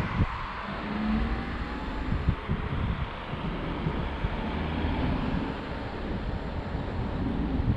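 Outdoor street noise: a steady wash of traffic, with wind rumbling in gusts on the microphone.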